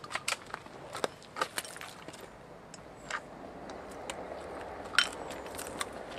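Scattered sharp clicks and knocks of an AR-style long gun being handled, irregular and a second or so apart, the loudest about five seconds in.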